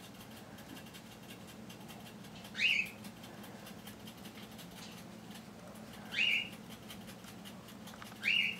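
Three short, high chirps, each a quick rising sweep, spaced a few seconds apart, from a small animal; a low steady hum runs underneath.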